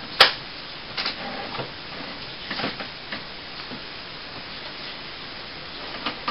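HP Photosmart C5180 inkjet printer running as it starts a test print: a steady mechanical whir with scattered sharp clicks, the loudest about a quarter second in.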